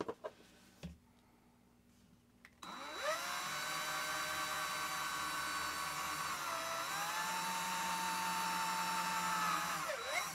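A few handling clicks, then a cordless drill spins up with a rising whine and runs steadily as its 1.6 mm bit drills a pilot hole into a diecast car body for an M2 cutting tap. Its pitch dips briefly midway and falls away as it stops near the end.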